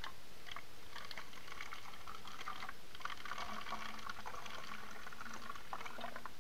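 Hydrogen peroxide trickling from a plastic cup into the narrow neck of a plastic bottle, with a steady splashing patter of many small ticks that fades out near the end.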